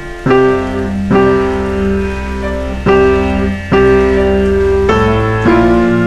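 Background piano music: slow notes and chords struck about once a second over a soft, sustained low bass.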